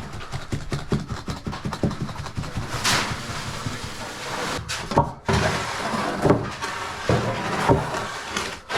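Wet concrete being worked with a 2x4: rapid rough scraping and scuffing strokes, with a few louder wooden knocks.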